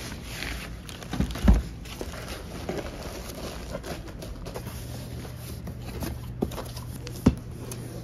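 Parcel packing by hand: plastic mailing bags rustling and cardboard postal boxes being folded and handled, with a loud thump about one and a half seconds in and a sharp knock near the end. A low steady hum sets in about halfway through.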